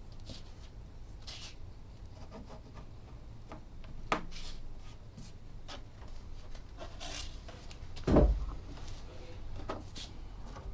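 Close handling sounds of bookbinding work: cloth and paper rubbing and rustling against a cutting mat, with small scattered taps and a dull thump about eight seconds in, the loudest sound.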